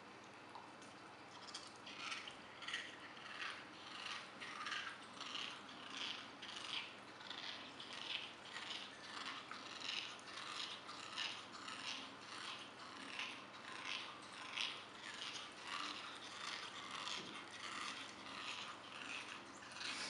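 A German Shepherd puppy chewing the head of a rubber chicken toy, squeezing out a rhythmic squeaky croak about one and a half times a second, like a frog calling. It starts about a second and a half in.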